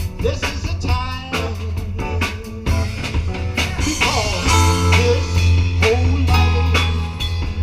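Live band playing a song: guitar over bass and a steady drum beat.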